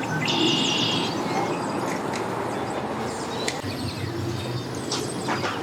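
Boat engines running with a steady rumble, and birds chirping during the first second.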